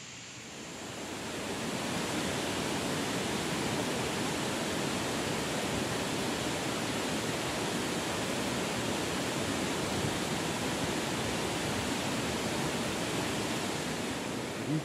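Steady rushing of flowing water, fading in over the first two seconds and then holding even.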